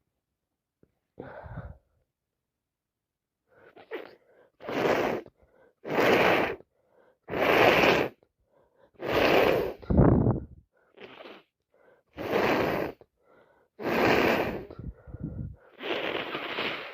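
A woman with a head cold sneezing again and again: a run of about eight loud, wet sneezes a second or two apart, beginning after a short sniff and a few seconds of quiet.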